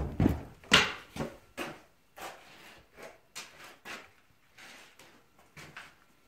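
Footsteps going down a flight of stairs, a thud about twice a second, louder in the first two seconds and then fainter and more spaced as the steps reach the floor.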